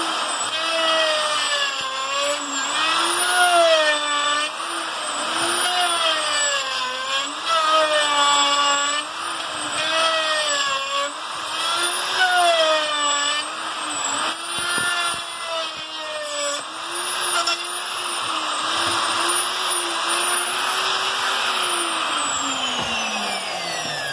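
Plunge router motor running under load as a wide bit flattens a wooden slab. Its whine rises and falls every second or two as it is pushed back and forth across the wood. Near the end the pitch drops steadily as the router is switched off and spins down.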